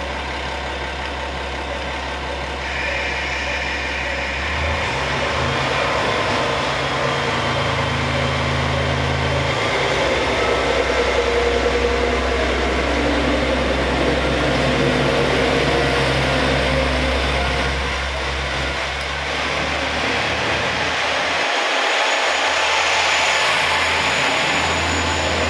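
The etSETOra sightseeing train, a converted KiHa 47 diesel railcar, running its diesel engine with a steady low drone, the engine note stepping up a couple of times as it throttles up to pull away. Near the end the low drone drops off and a rushing hiss of the moving train takes over.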